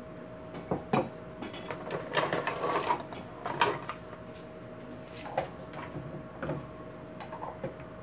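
Small tools and objects being picked up, moved and set down: irregular clicks, knocks and short rattles, busiest in the first few seconds.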